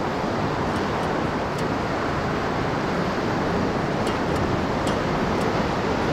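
Steady rush of churning whitewater as a canoe runs through a river rapid.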